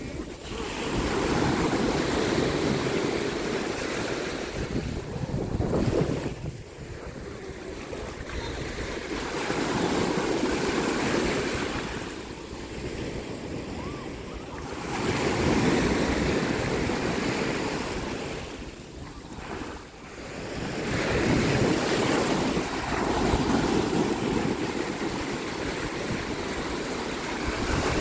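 Small waves breaking and washing up a sand beach, the surf swelling and fading back about every six seconds, four times over.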